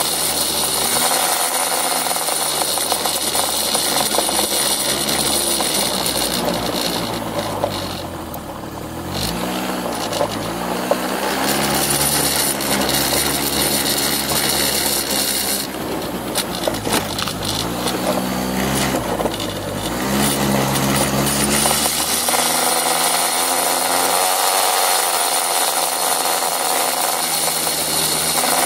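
Small motor scooter's engine running while riding over a gravel track, with a dense rough noise over it. The engine's pitch drops and rises again twice, about a third of the way in and again past the middle.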